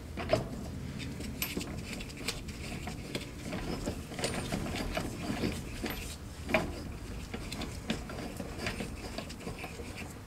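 Hand tools working on metal: irregular clicks and knocks over a low rumble, with a sharper knock near the start and another about two-thirds of the way through.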